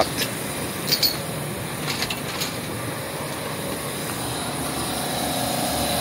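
Steady mechanical hum of outdoor refrigeration condensing units running, with a few light knocks about one and two seconds in.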